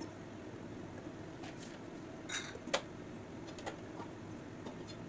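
Rohu fish curry simmering in a pan on a gas burner: a low, steady cooking noise with a few small sharp clicks, the clearest a little under three seconds in.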